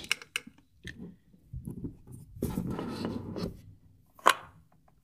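Samsung phone box and its packaging being handled and opened: rustling and scraping of cardboard and wrapping, with one sharp click about four seconds in.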